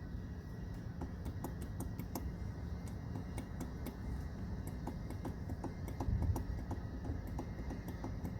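Light, irregular metal clicks and taps of hand tools being handled, over a steady low background hum, with a duller knock about six seconds in.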